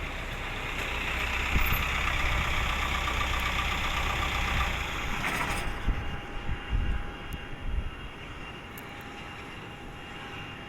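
Jet airliner engine noise, a steady rush with a thin whine, that drops off suddenly about five and a half seconds in. Fainter rushing and the whine carry on after that, with a few low thumps.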